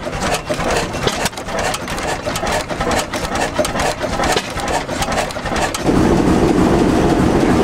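Small hopper-cooled antique flywheel engine running, its valve gear and moving parts making a rapid clatter of clicks. About six seconds in, the sound cuts abruptly to a large Fairbanks-Morse diesel engine running with a steady heavy rumble.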